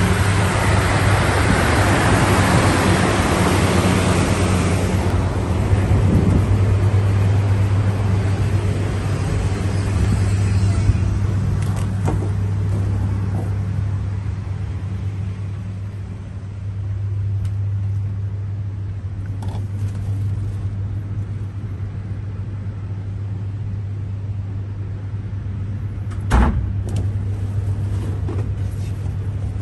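Two Biemmedue diesel-fired space heaters running, a steady low hum with the rush of their blowers pushing hot air through flexible ducting. The air rush is loudest for the first few seconds and then settles to a duller drone. A single knock comes near the end.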